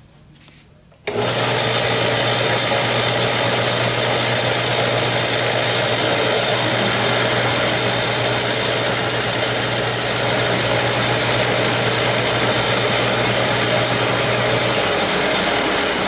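Delta belt sander switched on about a second in and running steadily, with a wooden bird blank pressed against its coarse 60-grit belt. A steady low hum stops near the end while the loud rushing noise carries on.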